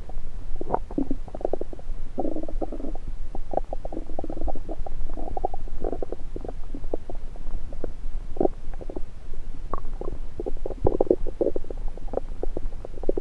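Human stomach gurgling, picked up through a stethoscope pressed on the belly: quick runs of bubbling gurgles and pops, with louder clusters about two seconds in, mid-way and near the end.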